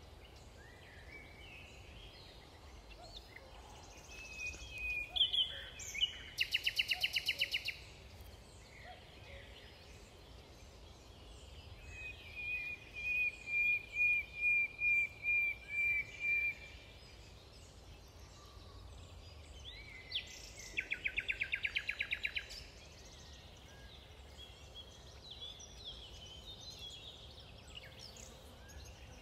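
Wild songbirds singing: two fast, rattling trills, and a run of about ten repeated whistled notes over some four seconds, with a faint steady low rumble beneath.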